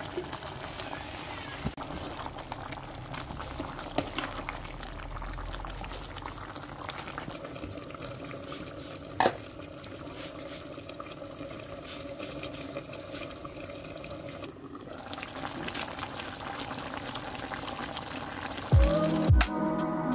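Food simmering in a pot on the stove: a steady bubbling hiss with small crackles and pops, and one sharp knock about nine seconds in. Music starts near the end.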